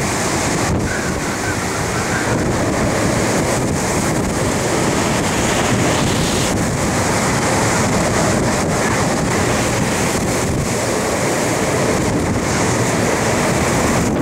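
Hurricane wind blowing hard, a steady rush buffeting the microphone.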